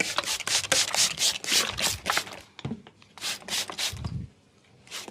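Hands rubbing and stroking over skin and hair during a massage: a quick run of brushing strokes, fewer and spaced apart from about halfway in.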